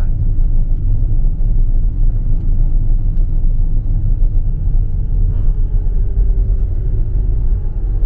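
Steady low rumble of engine and tyre noise heard from inside a moving vehicle's cabin while driving.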